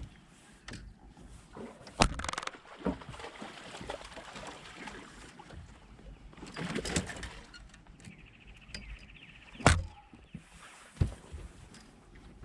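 Sharp knocks against a boat and a splash of water while a big hooked bass is fought and landed, with a brief fast ticking about eight seconds in.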